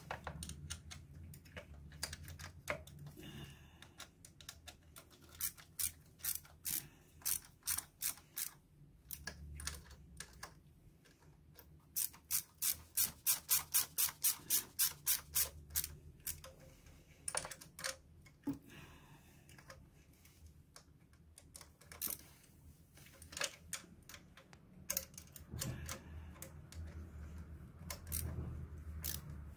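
Hand ratchet tool clicking as it turns the bolts that hold the LPG injector rail to its bracket. The clicks come in scattered runs, with a fast, even run of about four clicks a second near the middle.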